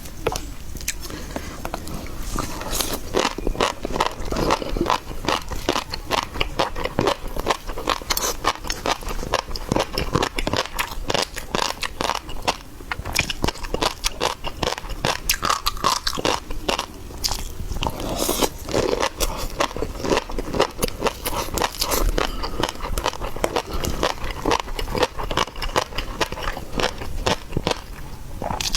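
Close-miked chewing and biting of seafood, with continuous wet crunching and crackling throughout.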